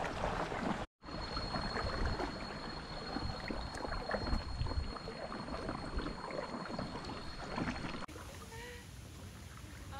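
River water splashing and lapping around an inflatable canoe as it is paddled, under a steady high-pitched tone. After a cut near the end come a few short, wavering animal calls.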